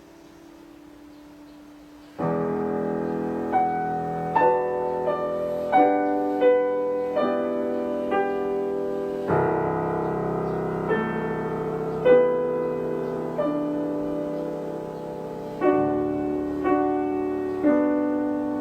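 Solo piano playing a slow, ringing passage: a faint held note, then a loud chord about two seconds in, followed by single notes struck roughly every second over sustained chords, with fresh chords struck about nine and sixteen seconds in.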